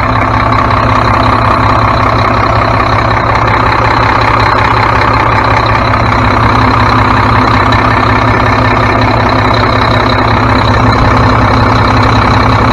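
Mack MP7 inline-six diesel truck engine idling steadily, with a steady high whine over it, just after a replacement VGT turbocharger has been fitted.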